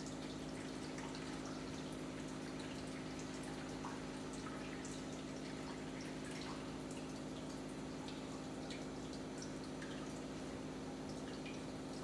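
Reverse-osmosis water purifier running with a steady low pump hum, while water trickles and drips from its outlet tubes into the drinking-water and drain jugs in small irregular ticks.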